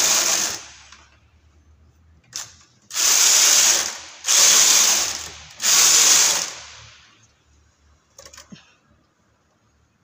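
Chunky knitting machine carriage being pushed back and forth across the needle bed, knitting rows. Each pass is a rasping slide of about a second. A pass is dying away as the sound begins, then three more follow in quick succession, with a few light clicks between passes and after the last.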